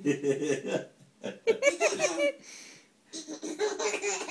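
Baby laughing in three runs of giggles with short pauses between, tickled by a cat licking its toes.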